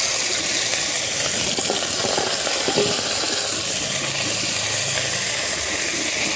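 Pieces of koi fish (climbing perch) frying in hot mustard oil in a kadai: a loud, steady sizzle.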